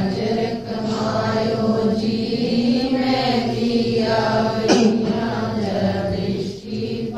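A devotional shabad being sung, with long held, gliding vocal lines over a steady accompanying drone.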